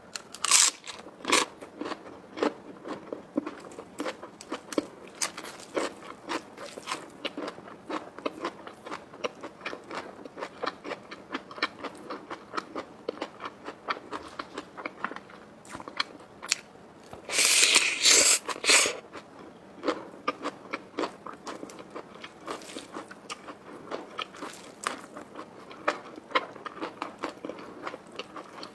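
A person eating close to the microphone: many small crunching and chewing sounds from crisp food, with a louder, longer crunching stretch about two-thirds of the way through.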